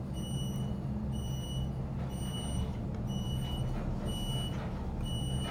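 Modernized Westinghouse traction elevator car running up its shaft at speed, with a steady low hum. A short high beep sounds about once a second, roughly in step with the floor indicator, as the car passes each floor.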